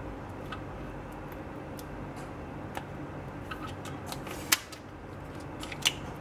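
Steady low hum of a running machine, with scattered small clicks and ticks of handling and two sharper clicks, the louder about four and a half seconds in and another near six seconds.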